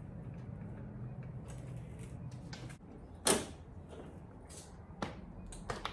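Plastic parts of a large animatronic being handled and fitted together: one sharp clack a little over three seconds in and a few lighter clicks near the end, over a low hum that fades out shortly before the clack.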